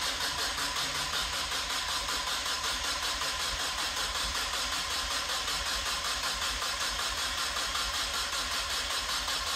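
Starter motor cranking a Mazda MX-5's newly fitted four-cylinder engine, a steady rapid pulsing that goes on without the engine catching. It does not fire because the injector loom is unplugged, so no fuel reaches the cylinders.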